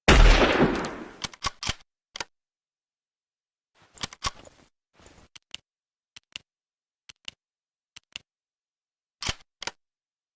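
A single shot from a Mosin-Nagant bolt-action rifle, with a deep boom that dies away over about a second. It is followed by the rifle's action: short metallic clicks, a rattle of the bolt about four and five seconds in, and then pairs of clicks about a second apart.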